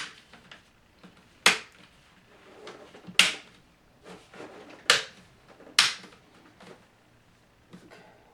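Plastic screen bezel of a Lenovo ThinkPad T430 snapping into place on the lid as it is pressed along its sides and corners: five sharp clicks, one every second or two, as its clips catch.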